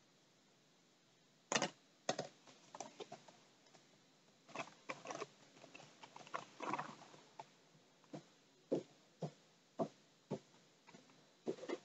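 A run of irregular light clicks and taps, beginning about a second and a half in after near silence.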